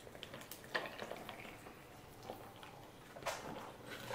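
Coffee poured from a small pitcher into a glass mason jar of ice: faint trickling, with soft knocks about a second in and again near the end.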